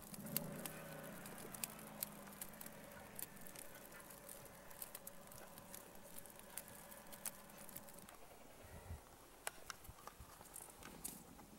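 Faint, scattered clicks and scuffs of footsteps and handling on stony ground, with a faint steady hum in about the first half.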